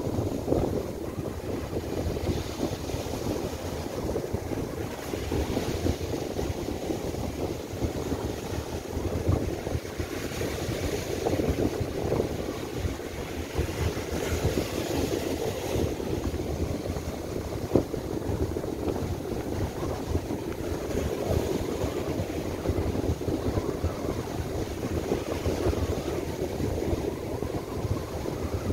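Near-gale gusts buffeting the microphone in a constant low rumble, over the hiss and wash of surf breaking on a sandy beach.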